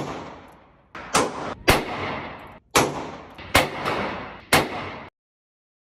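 Six shots fired from a cut-down Taurus 856 Ultralight .38 Special snub-nose revolver, at an uneven pace over about five seconds, each crack trailing off in echo.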